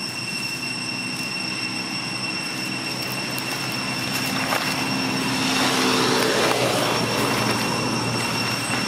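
A motor vehicle's engine hum, growing louder to a peak about six seconds in and then easing slightly. A steady high-pitched whine sounds throughout.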